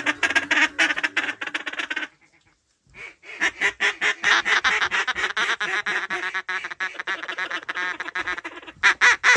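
Duck call blown in a fast, even quacking chatter, the mallard feed call that hunters use to bring ducks in. It breaks off about two seconds in and starts again a second later.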